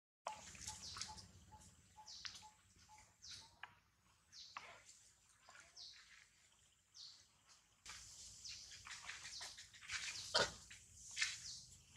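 Birds chirping in short, high calls that sweep downward, several a second, with a faint regular ticking for the first few seconds. Two louder sharp calls come near the end.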